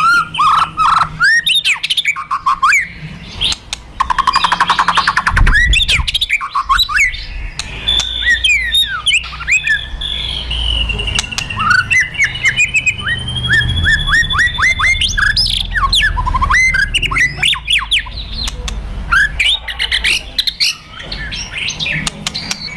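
White-rumped shama (murai batu) in a fighter's agitated song: fast sweeping whistles and sharp notes mixed with dry rattling clicks, the 'kretekan' and 'tembakan' of a provoked, aggressive bird. A fast buzzing rattle comes about five seconds in, and a long held high whistle runs through the middle.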